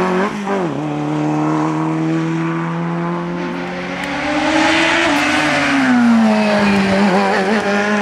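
Race car engine running at high revs on a hill climb. Its pitch drops sharply about half a second in, holds steady, rises around four seconds in and falls again near six seconds.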